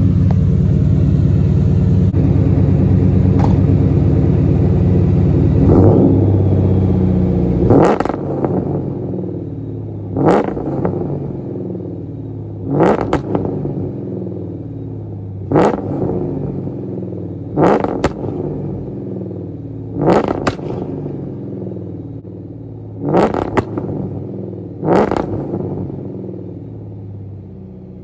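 Ford 4.6 L two-valve V8 in a Saleen Mustang, through long-tube headers, an X-pipe and Pypes M80 mufflers. For about the first eight seconds it is held loud against the two-step rev limiter with a rapid stutter, then it idles between eight quick throttle blips, each a sharp rise and fall in revs.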